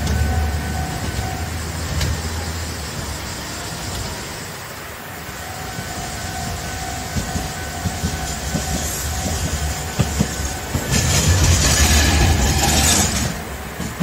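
Old Kagoshima City Tram 600-series streetcar (car 612) approaching and passing close, its wheels and running gear loudest for about two seconds near the end, over a level-crossing warning bell ringing.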